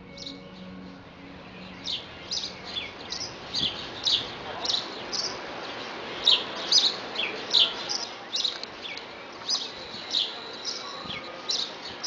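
House sparrow chirping: a string of short, sharp chirps, about two a second, starting about two seconds in, over a steady outdoor hiss.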